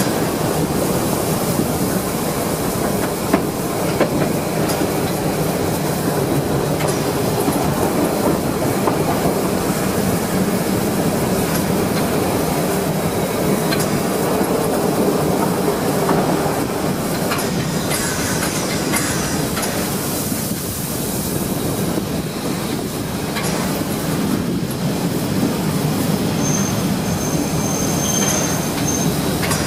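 Metre-gauge steam train behind a class 99.23–24 2-10-2T tank locomotive running steadily, wheels clattering over the rail joints. A thin, high-pitched wheel squeal is held for a couple of seconds near the end as the train rolls into the station tracks.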